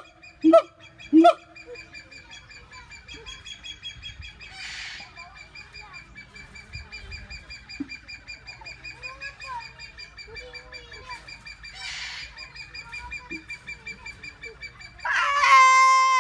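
Siamang calling. It gives a few loud, evenly spaced hoots, then a fainter stretch of rapid, high pulsed notes with some distant calls, and near the end a loud call that rises sharply at its start.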